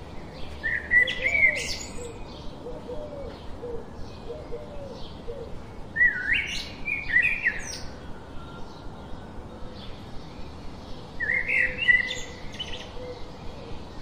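Birds chirping: three louder bursts of quick, sharp chirps about five seconds apart, with faint short chirps between them.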